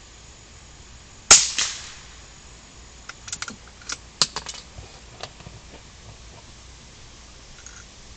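One gunshot with a short ringing tail about a second in, followed a couple of seconds later by a run of quieter metallic clicks and clacks.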